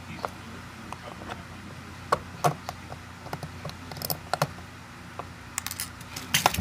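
Small sharp metal clicks and taps from a Corbin Russwin 6-pin lock cylinder being taken apart by hand, its pins and parts handled over a wooden pin tray. The clicks come irregularly, with a quick cluster near the end, over a steady low hum.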